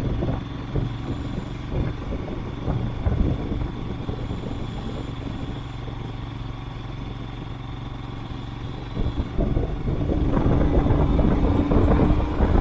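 Royal Enfield Himalayan motorcycle's single-cylinder engine running while riding over a potholed road, with many short knocks and rattles. The engine gets louder near the end as it picks up speed.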